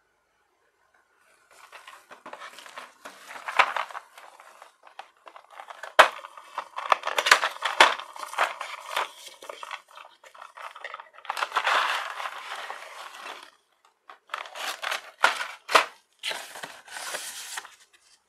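Cardboard collector-figure box and clear plastic blister tray being handled and unpacked: scratchy sliding and crinkling in irregular bursts, with sharp clicks and short pauses, starting about a second and a half in.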